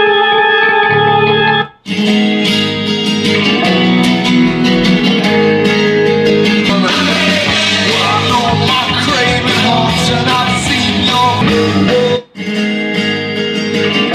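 Rock music with electric guitar and vocals playing through a small Archeer A226 Bluetooth speaker. It cuts out briefly about two seconds in and again near the end as the track is skipped to the next song.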